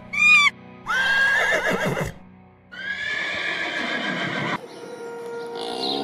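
Shrill animal calls over background music: a short arched call, then two long wavering calls. A lower, deeper call begins just before the end.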